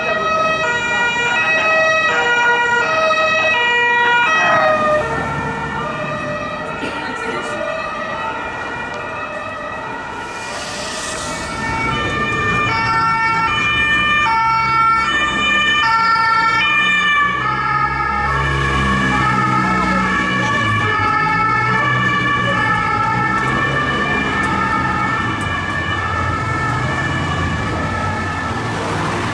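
Police car two-tone siren, switching back and forth between two pitches. It fades for several seconds, then comes back loud over the rumble of engines in traffic.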